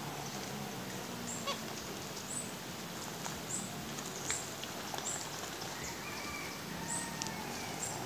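Birds calling around a pond: short, high chirps repeating roughly once a second, with a couple of longer whistled notes near the end, over a steady low background hum.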